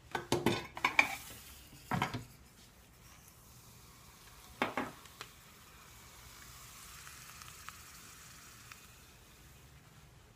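Liquid nitrogen being ladled into a porcelain mortar, with sharp clinks and clatter of the utensils in the first two seconds and again about halfway. After that comes a faint, steady hiss of the liquid nitrogen boiling off in the mortar.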